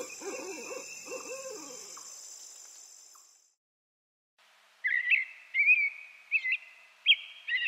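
An owl hooting in low repeated calls over a steady high whine, fading out about three seconds in. After a brief silence, a small bird gives about six short, high chirps.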